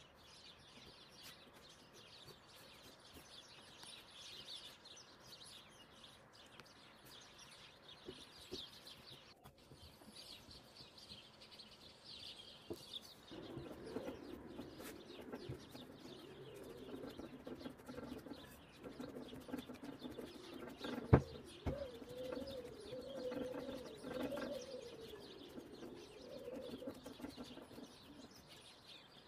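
Birds chirping faintly, then a dove cooing steadily through the second half. A single sharp click comes about two-thirds of the way through.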